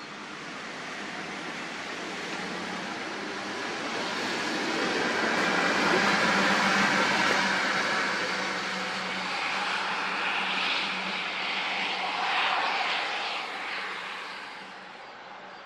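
A passing vehicle's rushing noise swells to a peak about six seconds in, holds, then fades away near the end, over a steady low hum.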